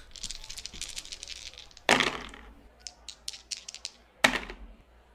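Dice being rolled for a game check: a run of rapid light rattling clicks, with two louder sharp knocks about two seconds and four seconds in.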